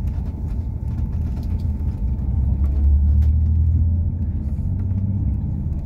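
Low road rumble of a moving vehicle heard from inside the cabin, swelling a little about halfway through, with a faint steady whine above it.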